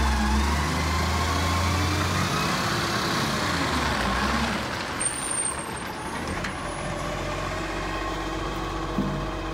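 Garbage truck's diesel engine running as the truck pulls away and drives off. The heavy low rumble drops away about two seconds in, and the engine note then rises and falls as it moves off.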